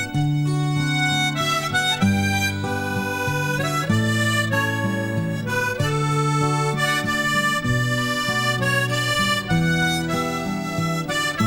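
Instrumental folk music: a reedy wind melody of quick, separate notes over sustained low chords that change about every two seconds.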